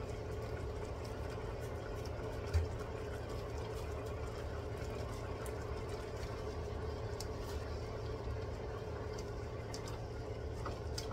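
Squid and string beans simmering in a little broth in a wok, over a steady low hum, with faint scattered ticks. A spatula stirs the pan in the later part, and a single soft thump comes about two and a half seconds in.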